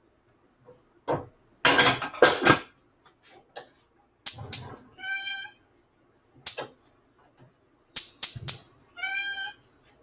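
Clatter of kitchen items being knocked and set down, the loudest a burst of bangs about two seconds in, with two short high squeals about four seconds apart.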